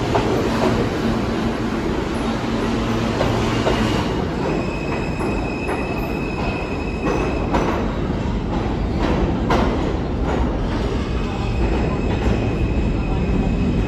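R160 subway train running through the station. A low hum gives way about four seconds in to a high, steady wheel squeal that comes and goes over a continuous rumble, with several sharp clacks of wheels over rail joints.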